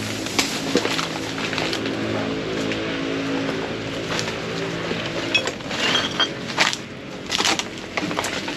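An engine running steadily, stopping about five seconds in, over scattered knocks, scrapes and rustling.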